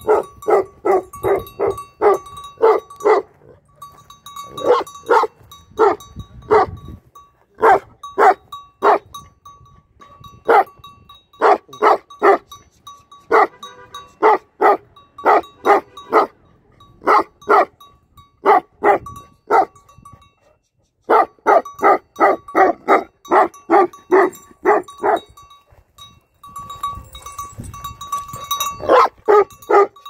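Large chained guardian dog barking over and over in fast runs of deep barks, about three a second, with short pauses between runs. The sound briefly cuts out about two-thirds through.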